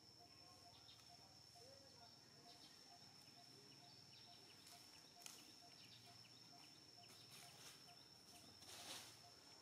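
Near silence: faint outdoor ambience with a steady high-pitched whine and a faint regular pip about three times a second. Scattered small clicks, a short chirp about two seconds in, and a brief rustle near the end.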